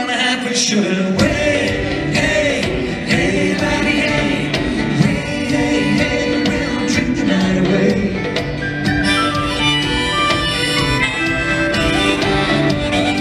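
Celtic band playing a drinking song live: fiddle, acoustic guitar and drum kit, with singing. From about nine seconds in a quick, busy instrumental tune takes over.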